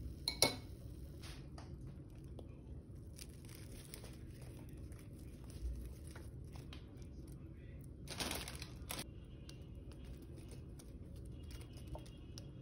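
Light rustling and crinkling of shredded lettuce and chopped peppers being dropped onto a plate. A sharp click comes about half a second in, and a louder rustle comes about eight seconds in.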